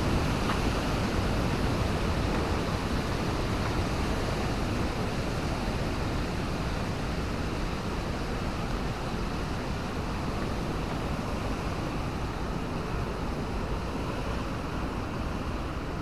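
Steady rush of water pouring over the Watu Purbo check dam, growing slowly fainter.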